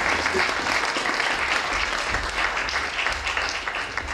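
Audience applauding, a dense, steady clapping that eases a little near the end.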